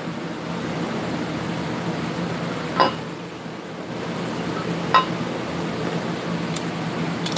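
Two sharp glassy clinks, about three and five seconds in, as a liquor bottle is handled against a glass blender jar while triple sec is added. Underneath, an electric fan blows steadily.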